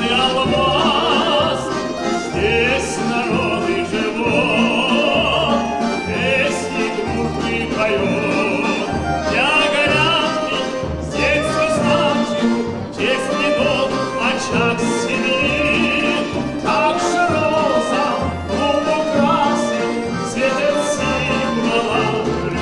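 A trained voice singing a song with strong vibrato, accompanied live by a folk-instrument orchestra of plucked strings such as balalaikas and domras, with double bass.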